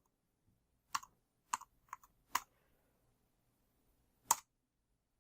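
Keys on an Anker ultra-compact Bluetooth keyboard with scissor switches pressed one at a time while the pairing code is typed: four light clicks about half a second apart, then one more after a pause of about two seconds.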